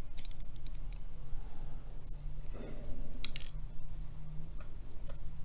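Scattered small metallic clicks and ticks of the padlock's pins, springs and cylinder being handled during disassembly, with a brief cluster of clicks about three seconds in.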